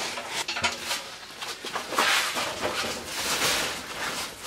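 Sheet-metal stovepipe on a small tent wood stove being fitted into place: a few light metal knocks, then a longer scraping, rustling stretch from about halfway through.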